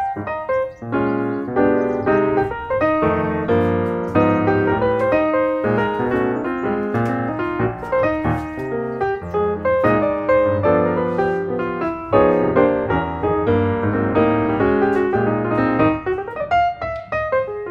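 Piano music playing, a continuous flow of notes.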